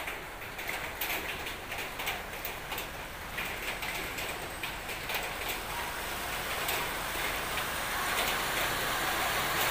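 Floodwater splashing and washing as a small car drives slowly through it toward the microphone, the sound growing steadily louder in the second half as the car comes closer. Small ticks and splashes of water close by run through it.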